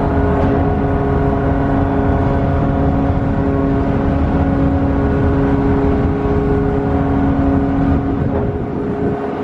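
Ship's deck mooring winch machinery running: a steady mechanical hum made of several held tones over a low rumble.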